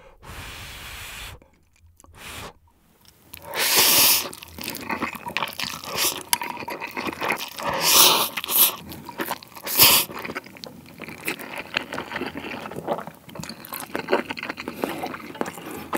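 Close-miked ASMR eating: a person slurps spicy stir-fried Buldak noodles with melted mozzarella cheese, then chews. Loud slurps come about four, eight and ten seconds in, with steady chewing between and after them; the first few seconds are quiet.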